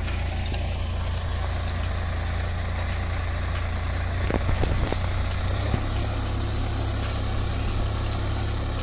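Diesel tractor engine running steadily under load as it pulls a disc plough cutting a furrow, with a few brief knocks between about four and six seconds in.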